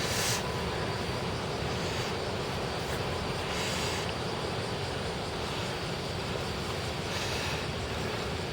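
Steady outdoor background noise, a low rumble with a hiss over it, swelling briefly a few times.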